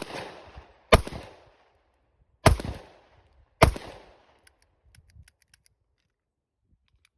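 Taurus semi-automatic pistol firing steel-cased ammunition outdoors: four shots about a second apart, each with an echo tail, the first right at the start. After the fourth shot there are a few faint clicks and no more shots, which fits a misfire the shooters then find to be a light primer strike on a cheap round.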